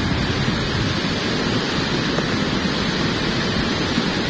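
Volcanic lahar, a dense flood of mud and water, rushing and churning past as a loud, steady rumbling roar. The flow is carrying large boulders rolling along in it.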